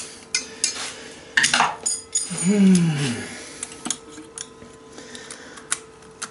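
Stainless steel pieces clinking and scraping as they are handled: several sharp metal clicks, then a longer ringing scrape that falls in pitch about two seconds in.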